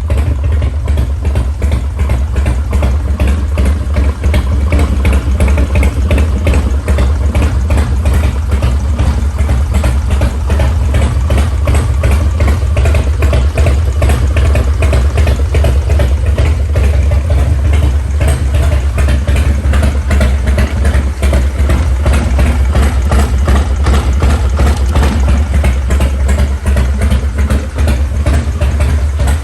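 Harley-Davidson FXR's V-twin engine running steadily with no revving.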